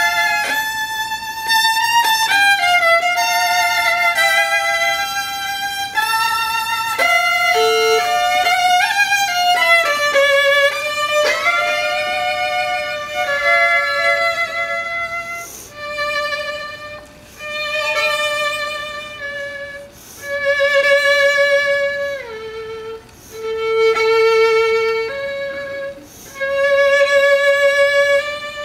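Violin playing a classical piece. Quick, changing passages come first, then from about halfway long held notes with wide vibrato, separated by short pauses.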